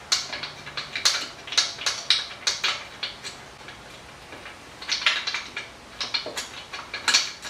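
Hand tool working the rear axle chain adjuster of a Yamaha R1 motorcycle, tensioning the chain: a run of light metal-on-metal clicks, about two to three a second, pausing briefly midway.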